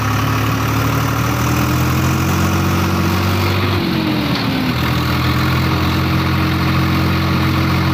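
Tractor's diesel engine running while driving, heard from the driver's seat; its steady note rises slightly, dips briefly about four seconds in, then holds steady again.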